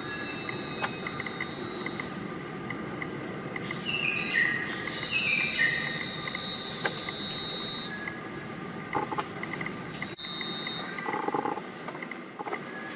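Rainforest ambience: steady trilling of insects, with two short runs of bird notes stepping down in pitch about four and five seconds in, and a few faint calls near the end.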